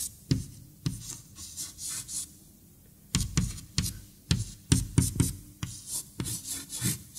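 Chalk writing on a blackboard: a quick run of short taps and scratching strokes, with a brief lull about two and a half seconds in.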